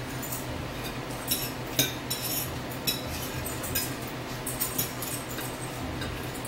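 Fork and cutlery clinking and scraping against plates during a meal: short sharp clicks every half second to a second, over a low steady hum.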